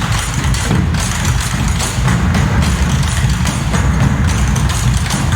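Background pop music with a steady beat and heavy bass, in an instrumental stretch between sung lines.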